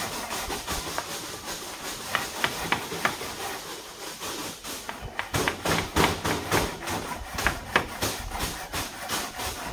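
Irregular knocks of hand tools striking wooden poles during hut framing, over a steady hiss; the knocking grows busier about five seconds in.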